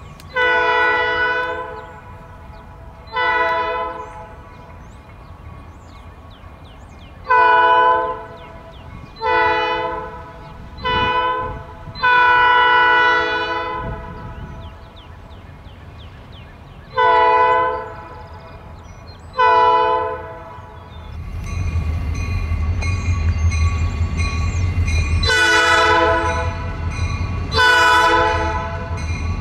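Diesel freight locomotive sounding its multi-note air horn in about ten blasts, among them a long, long, short, long grade-crossing signal. About two-thirds of the way in, the locomotive's low engine rumble grows loud as it draws near, with two more horn blasts over it.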